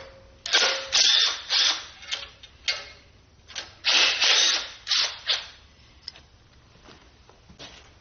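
Power tool run in short, irregular bursts while taking apart a Ford 351 Windsor short block, the loudest bursts about one and four seconds in.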